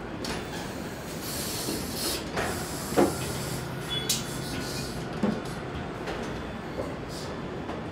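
Car-body conveyor machinery running on its rails: a steady mechanical hum with spells of hissing air and a few sharp metallic clunks, the loudest about three seconds in.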